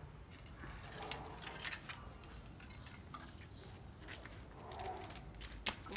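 Plastic packing strap and stacked plastic crates being handled while the crates are tied up: scattered faint rustles and small clicks, with one sharp click near the end.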